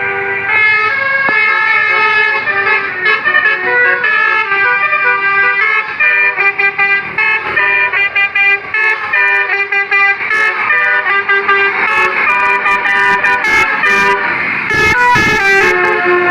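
Bus 'telolet basuri' multi-trumpet air horn playing a fast melody, its notes changing several times a second. Several sharp clicks sound over it in the last few seconds.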